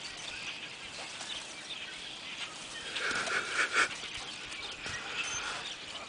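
German wirehaired pointer giving a short excited whine about three seconds in while nosing into the branches of a spruce tree after a bird.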